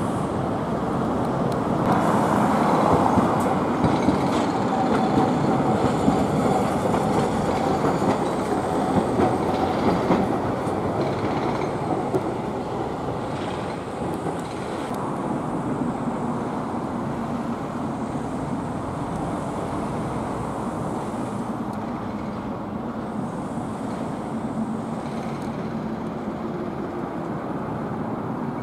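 City street traffic, a steady rumble of passing vehicles, louder over the first dozen seconds as something heavy goes by, then settling to a lower hum.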